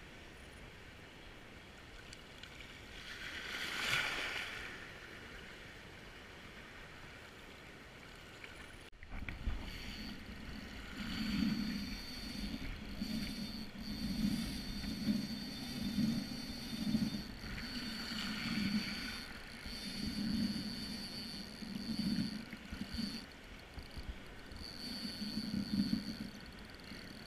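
Daiwa Certate spinning reel being wound in, giving a steady thin high whine from about nine seconds in, which breaks off briefly now and then. Uneven low buffeting from wind and water sits under it. Before that there is only an even wind and water hiss that swells briefly about four seconds in.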